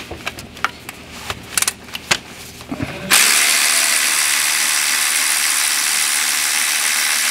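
Cordless electric ratchet running steadily, spinning the lower 10 mm thermostat housing bolt, starting about three seconds in. Before it come a few sharp clicks and knocks as the tool is handled and fitted onto the bolt.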